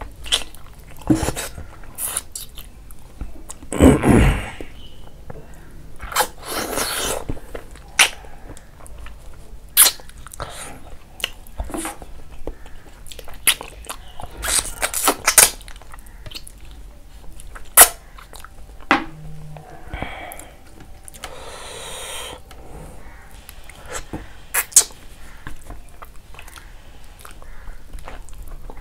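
Close-miked eating sounds of rice and pork leg curry eaten by hand: chewing and sharp wet mouth clicks, with a few longer, louder slurping bursts about 4, 7, 15 and 22 seconds in.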